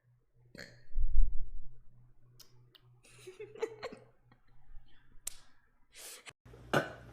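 Scattered clicks and a low thump about a second in, then a woman's short burp around three to four seconds in, over a faint steady low hum.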